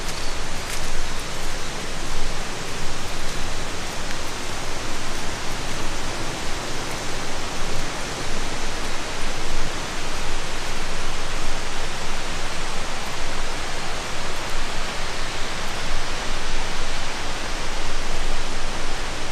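Steady hiss of running or falling water, even and unbroken.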